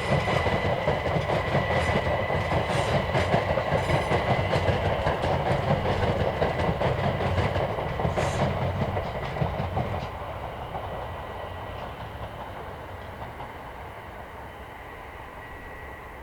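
Train passing, its wheels clattering rapidly over the rails with a thin steady high tone above the rumble. About ten seconds in the sound drops away and fades as the train recedes.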